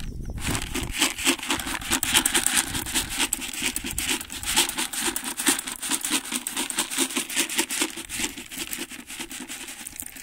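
Sheep feed pellets (ewe nuts) rattling and sliding out of a plastic bucket as they are poured and scattered onto grass: a dense, irregular patter of small clicks.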